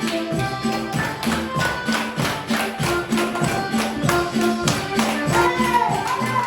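Upbeat background music with a quick, steady beat and bass line. A wavering high melodic line comes in near the end.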